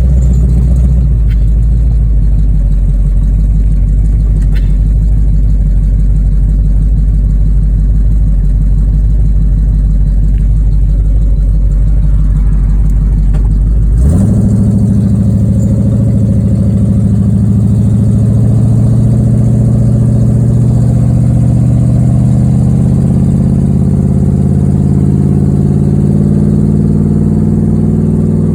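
Pontiac 455 V8 with a Lunati Voodoo camshaft and a Holley 750 carburetor, its idle mixture screws freshly tuned, running as the car is driven. It holds a steady low rumble, then about halfway through the note changes abruptly and climbs slowly and steadily in pitch as the engine pulls harder.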